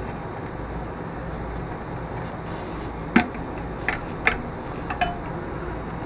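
Four short sharp clicks, less than a second apart, from hand work on the small metal parts of a mower's stop-cable and flywheel-brake linkage, over a steady low background hum.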